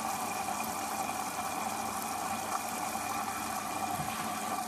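Hoover Dynamic DYN 9164 D8PX washing machine running at the start of its cycle: a steady mechanical hum with a constant whine.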